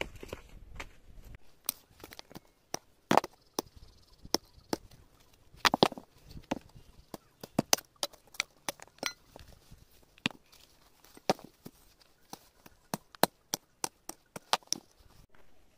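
Irregular sharp knocks from hand work, roughly one to three a second, with some strikes much louder than others.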